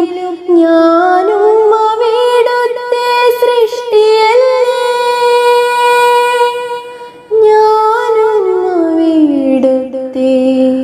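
A young woman singing a Malayalam devotional prayer song solo, unaccompanied, in long drawn-out held notes with gliding ornaments. There is a short break about seven seconds in, and the line falls in pitch near the end.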